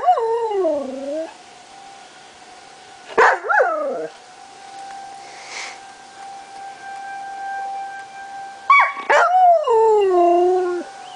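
A Dutch Shepherd–husky mix dog howls three times, each howl sliding down in pitch, with the last and longest starting near the end. Behind the howls a distant tornado warning siren holds one steady tone.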